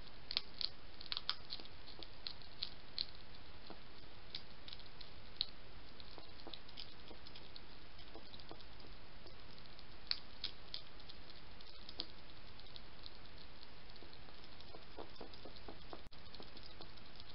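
European hedgehog eating from a dish: irregular small crunching clicks and smacks of its mouth, bunched in the first few seconds and again about ten seconds in, over a steady hiss.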